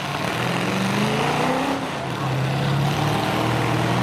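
Engines of full-size demolition derby pickup trucks running and revving, several at once, their pitch rising and falling.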